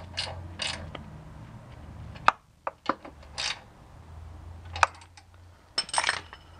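Ratchet and socket extension clicking and clinking metal on metal in scattered single strikes, some with a short ring, as a transmission bracket bolt is run in and snugged down.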